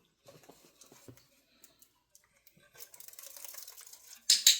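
Light taps, then soft paper rustling as a budgie works its way through a paper tube. Near the end come two loud, sharp clicks close together, typical of a training clicker marking a completed trick.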